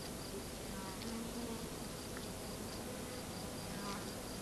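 Faint steady hiss, with a faint high tone that pulses evenly throughout.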